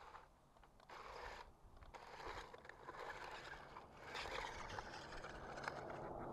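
Small battery-powered remote-control toy tank driving over gravel and dirt, its plastic tracks scraping and crunching on the grit. It runs in short stop-start spurts at first, then keeps going and gets a little louder.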